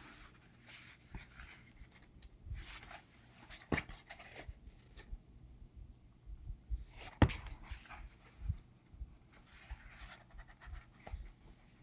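Pages of a hardcover book being leafed through and handled, with bursts of paper rustling and two sharp taps of the book being handled, the louder one about seven seconds in.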